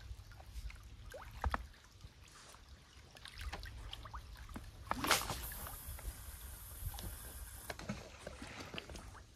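A feeder rod cast, heard as a sharp swish about five seconds in, followed by a high hiss of about two and a half seconds as the feeder flies out. Faint scattered clicks of tackle handling come before and after it.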